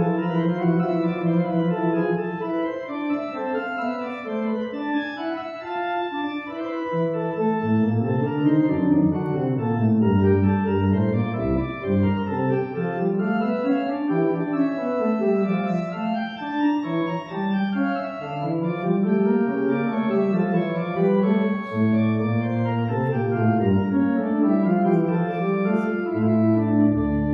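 Organ playing a slow piece: sustained chords over a bass line that walks up and down in steps, with long held chords near the start and the end.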